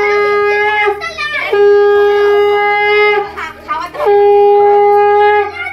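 Conch shell (shankha) blown in three long, steady, single-pitch blasts with short breaks between them. The first blast is already sounding at the start and ends about a second in.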